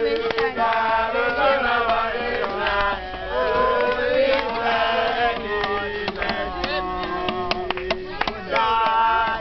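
A group of young voices singing a praise song together, several pitches held and sliding at once.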